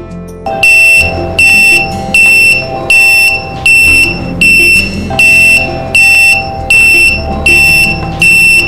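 G.T. Power RPM/Volt analyzer's low-voltage alarm beeping: a loud high-pitched beep repeating steadily about once every three-quarters of a second, starting just under a second in. It signals that a battery cell has dropped below the set alarm voltage.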